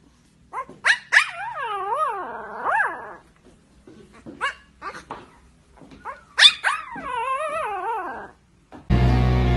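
A young puppy howling: two drawn-out, wavering howls with a few short yips between them. Loud music cuts in abruptly near the end.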